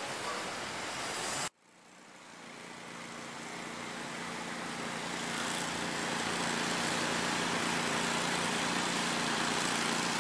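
City street traffic noise, a steady hiss with a low engine hum under it. The sound cuts out abruptly about a second and a half in and fades back up over the next few seconds.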